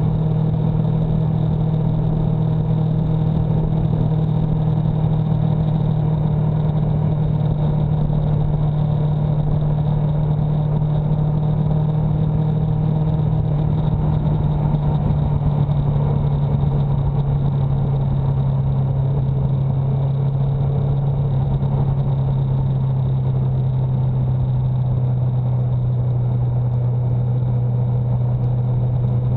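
A vehicle engine running steadily at cruising speed over a constant rushing road noise. Its pitch drops a little about halfway through as the vehicle slows.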